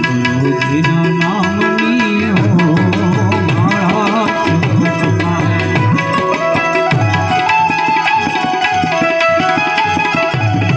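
Instrumental interlude of a Gujarati bhajan dhun: a harmonium plays the melody in sustained reedy tones over a steady rhythm on Indian hand drums, whose low strokes bend in pitch.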